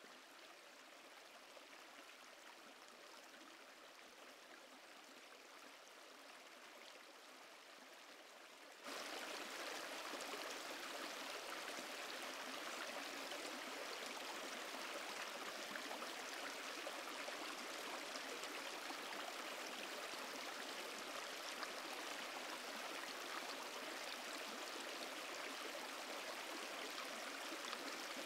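Shallow stream running over stones, a steady rush of water. It is faint at first and jumps sharply louder about nine seconds in.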